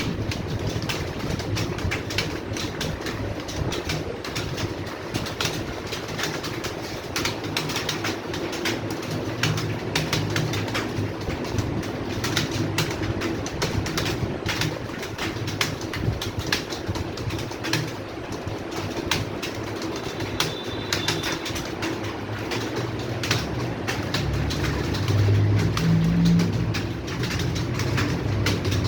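Many computer keyboards clattering at once in dense, irregular key clicks as several people type continuously, over a steady low hum.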